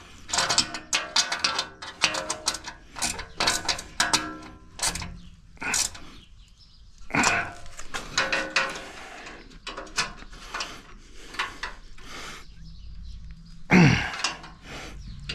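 Ratchet wrench clicking in quick runs as a roof-rack bolt is tightened, the clicks coming thickly for the first few seconds and then in scattered bursts. Near the end comes one short, loud sound falling in pitch.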